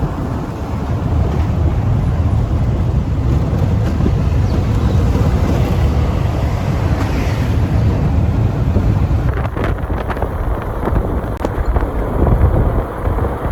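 Wind buffeting the microphone over the low rumble of a moving vehicle on the road, with a few light clicks about ten seconds in.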